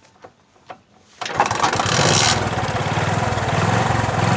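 Bajaj Chetak 4-stroke scooter's single-cylinder engine kick-started: a few faint clicks, then about a second in it catches on the first kick and runs steadily, briefly higher just after catching, then settling. It runs smoothly with no misfire while still cold.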